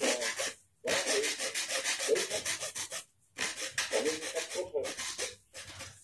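Hand-held saw blade sawing through the pleated paper and edge of a car cabin air filter in rapid back-and-forth strokes, with short pauses about a second in, around three seconds in and near the end.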